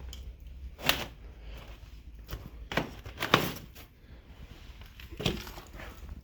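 Footsteps crunching over debris on a floor, with a few sharp knocks and crunches spaced a second or two apart, the loudest about three seconds in.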